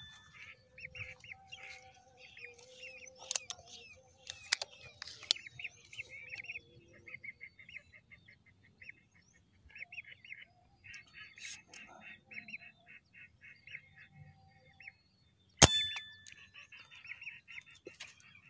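Lesser whistling ducks calling with rapid strings of short, high whistles. A single loud, sharp shot comes about three-quarters of the way through, with a few fainter sharp clicks between about three and five seconds in.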